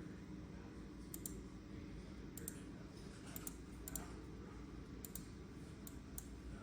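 Keys on a YUNZII X71 mechanical keyboard pressed one at a time: sparse, light clicks about once a second, many coming as quick pairs, over a faint low background hum.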